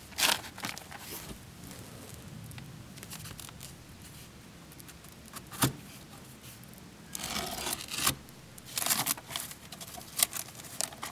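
Blade cutting through Typar plastic house wrap in short rasping strokes, with the cut wrap rustling as the flap is pulled back; one sharp click about halfway through.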